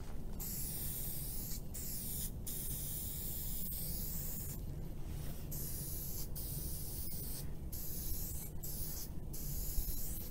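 Aerosol spray-paint can hissing in repeated bursts of about half a second to two seconds, with short breaks between them, over a low steady rumble.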